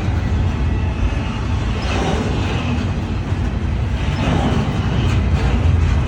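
Freight cars rolling slowly past: a steady rumble of steel wheels on rail, swelling and easing every two seconds or so.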